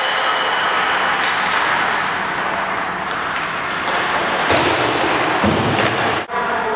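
Echoing ice-rink practice noise: skates scraping the ice as a steady hiss, with a couple of knocks, such as sticks or a puck against the boards, about four and a half and five and a half seconds in. The sound cuts out for an instant near the end.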